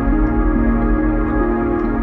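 Ambient background music: held notes shifting in steps every second or so over a steady deep bass.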